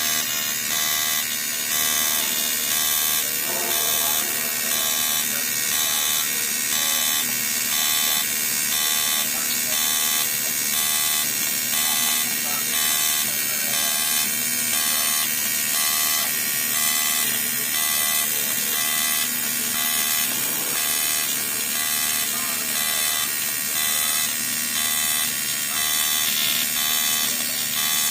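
Automatic AC TIG welding arc on an aluminum pipe nut: a loud, steady electric buzz that pulses in a regular alternating rhythm throughout.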